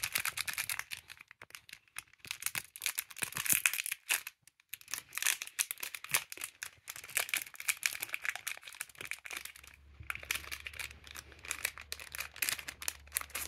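A One Piece card game booster pack's wrapper being torn open and crinkled: a dense run of crackles, with a brief pause about four seconds in.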